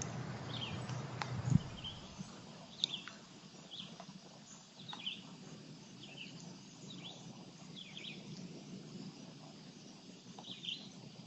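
Small birds chirping: short, quick falling chirps repeated about once a second over steady outdoor background noise. A single low thump about a second and a half in.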